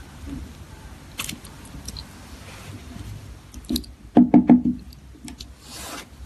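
A metal wristwatch and its bracelet being handled on a hard surface: scattered light clicks, then a quick run of about four knocks a little past halfway.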